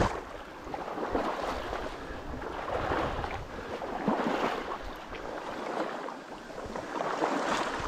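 Wading through shallow bog water and sedge, with water sloshing and splashing in irregular surges at each stride.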